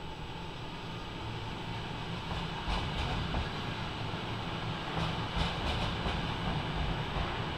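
Electric multiple-unit passenger train rolling past alongside the platform: a steady rumble of wheels on rails that grows slowly louder, with a few sharp clicks about three and five seconds in.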